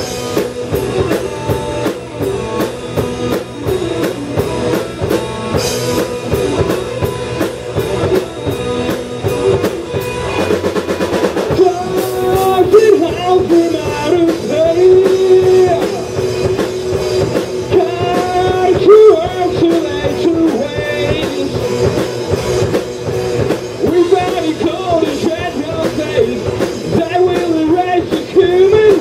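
A live rock band of electric guitars, bass guitar and drum kit playing a stoner-rock song in a small room. A singer comes in about twelve seconds in and keeps singing over the band.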